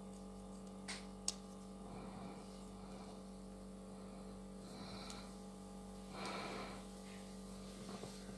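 Faint handling sounds of a small metal bottle cap being pressed and turned between the fingers: two small clicks about a second in and a soft rustle around six seconds in, over a steady low electrical hum.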